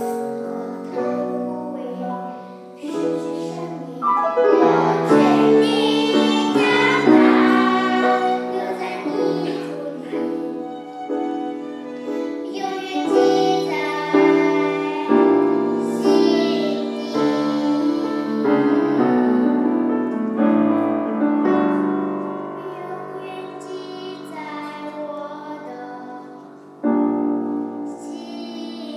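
A small group of young girls singing a Mandarin children's song in unison, with piano accompaniment. A new phrase comes in loudly near the end.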